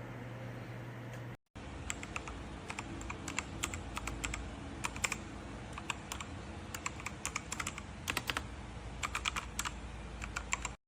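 Typing on a DEKAY DK98 Pro wireless mechanical keyboard: a quick, irregular run of key clicks. The typing starts after a second or so of steady hum and a brief silent break.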